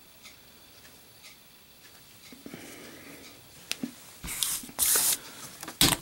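Cloth-gloved hands handling a Zippo lighter: faint rustling, then two brief bursts of rubbing noise about four and five seconds in, and a sharp click near the end as the lighter is set into its metal display stand.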